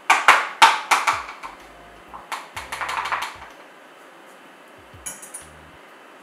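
Spoon knocking and clinking against a bowl: a quick run of sharp knocks, then another cluster of taps and scraping about two seconds in, as honey is spooned into a marinade. A short faint rattle near the end.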